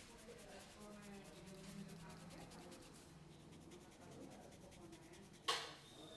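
Hands rubbing over a head and hair during a head massage: a faint, soft, steady rubbing. A single short sharp snap comes near the end.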